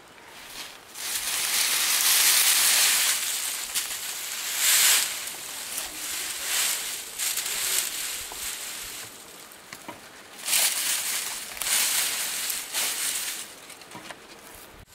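Dry straw being handled and pushed about, rustling and crunching in several spells, the longest about a second in and another near the end.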